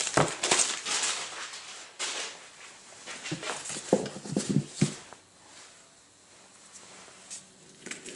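A flat cardboard mailer being handled on a table: rubbing and scraping of cardboard with a few light knocks as it is turned, tilted and set down. It goes mostly quiet from about five seconds in, with a couple of faint clicks near the end.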